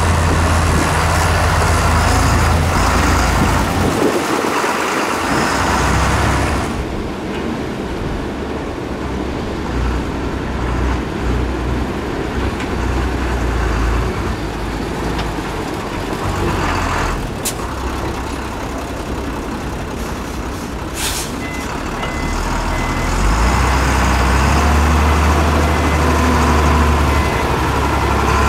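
Dongfeng dump truck's diesel engine running as the truck drives over a dirt site, with a short hiss about two-thirds of the way through. Near the end comes a faint run of evenly spaced short beeps.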